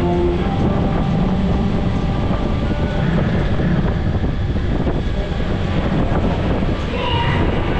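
Open ride vehicle of the Radiator Springs Racers slot-car ride, running along its concrete track on rubber tyres, heard from on board: a steady rolling rumble with rushing air.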